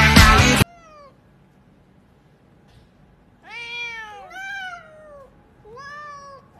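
Music cuts off suddenly well under a second in; after a quiet pause, a domestic cat meows several times, drawn-out meows that rise and fall in pitch, the clearest in the second half.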